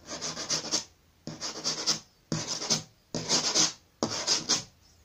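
Fingernails scratching across a hard surface in five separate strokes, each lasting under a second, with short pauses between them, as an ASMR trigger sound.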